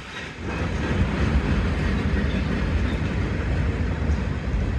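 Norfolk Southern freight train's flatcars rolling past, wheels rumbling and clacking over the rails. It gets louder about half a second in and then holds steady.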